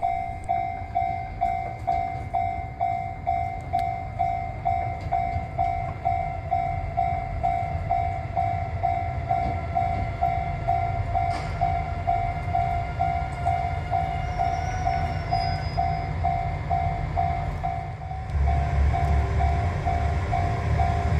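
Japanese railway level-crossing warning bell ringing steadily, about two strikes a second, as a JR train approaches. The low rumble of the train grows louder about eighteen seconds in.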